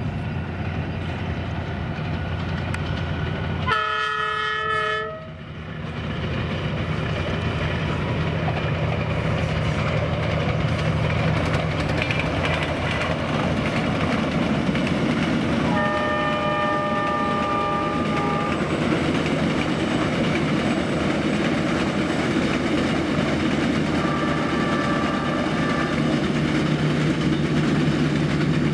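Diesel locomotive of a passenger train running steadily, its multi-tone horn sounding briefly about four seconds in and again for about two and a half seconds around the middle, with a fainter horn call near the end.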